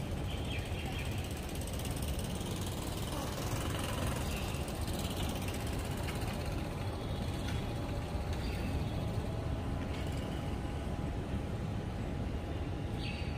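Steady outdoor background noise with a low rumble and a faint steady hum, with a few faint clicks.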